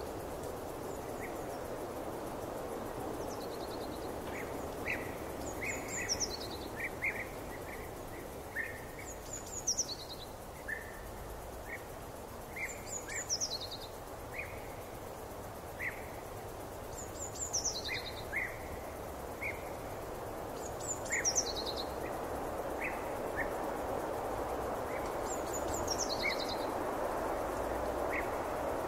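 Forest ambience of birdsong: a bird repeats a short, high, falling song phrase every three to four seconds, with many short chirps scattered between, over a steady rushing background.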